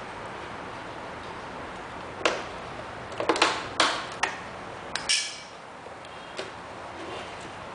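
A cluster of sharp plastic clicks and snaps over about three seconds, from the battery compartment cover being prised off the underside of a robot vacuum cleaner and the battery pack being lifted out, with one more click near the end, over a steady faint hiss.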